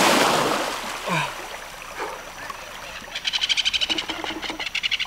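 A hooked arapaima thrashing at the surface, a heavy splash of water that fades away over the first second or so. From about three seconds in, a fast pulsing, high-pitched trill of a calling animal.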